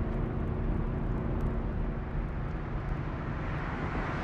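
Chevrolet Camaro Z28's V8 engine running steadily at speed, with steady road and wind noise under it.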